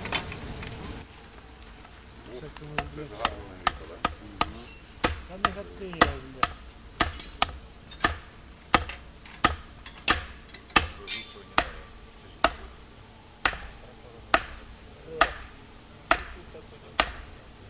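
Hand hammer striking a red-hot rebar on a small steel anvil block set on an oak stump: a run of sharp metallic blows with a high ring, about two a second, spacing out near the end. The forge fire's rushing noise is heard briefly at the start before the bar is taken out.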